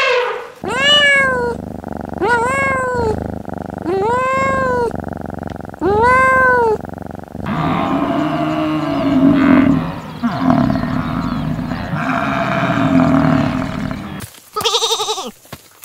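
Animal calls: four separate rising-and-falling, meow-like cries, then several seconds of lower, rougher calling, and a wavering, bleat-like cry near the end.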